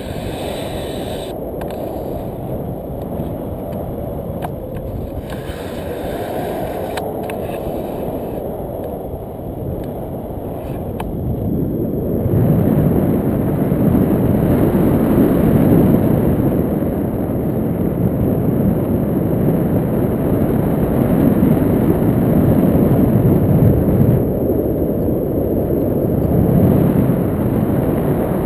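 Wind buffeting the microphone of a pole-mounted camera in tandem paraglider flight: a steady low rumble of airflow, growing louder about twelve seconds in.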